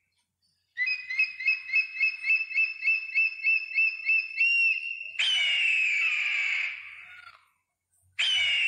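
Eagle calls: a rapid series of high, piping notes, about three a second, then a long harsh scream that falls in pitch, with a second falling scream starting near the end.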